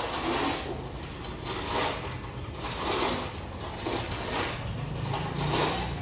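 Rose-ringed parakeet nibbling a biscuit held to its beak: about five short crunching scrapes, roughly a second apart.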